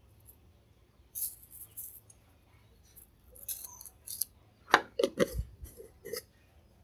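Plastic spoon scooping and scraping seasoning granules in a jar, a short dry rattling in two spells, followed by several sharp knocks and clicks near the end.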